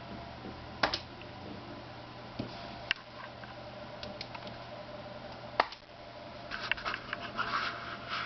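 Steady low hum with a few isolated sharp clicks, then a faint, rapidly chopped higher-pitched sound during the last couple of seconds.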